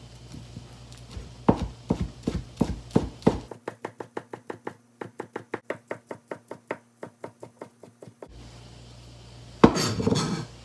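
Chef's knife slicing thin egg omelette on a plastic cutting board: a few uneven strokes, then a fast, even run of about five knife taps a second against the board. Near the end comes a louder scraping rustle of about a second.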